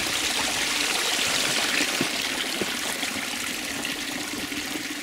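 Meltwater trickling and dripping: a steady splashing run of small water streams, with a few separate drips.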